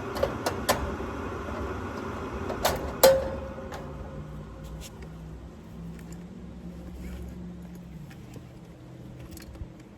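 Sheet-metal access panel of a gas-electric package unit being handled: a few light clicks, then two metallic bangs about three seconds in, the second loud and ringing briefly. A low hum fades away after it.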